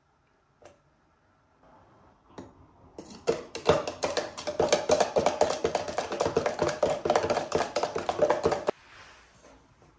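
Metal spoon stirring yeast and sugar into milk in a tall plastic beaker, clinking and scraping rapidly against the sides. A couple of light taps come first; the stirring starts about three seconds in and stops abruptly near the end.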